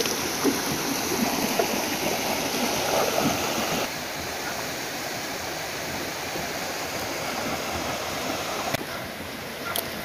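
Shallow rocky river running over stones: a steady rushing of water that drops a little in level about four seconds in and again near the end.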